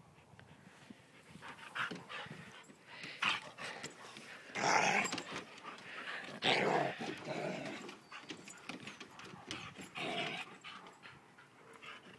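Two Alaskan malamutes, one of them a malamute cross, play-fighting with growls and snarls in several irregular bursts, the loudest about five and six and a half seconds in.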